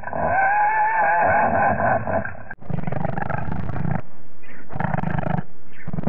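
Designed dragon sound effect made from animal recordings: a pony-based cry, pitched and wavering, for about two and a half seconds, then a sudden cut to deep growling roars made from a puma recording, coming in pulses.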